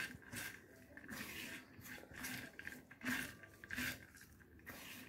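Hand mixing chopped okra with salt in a clay dish: faint, repeated rustles and soft squishes of the wet slices being tossed, coming about once or twice a second.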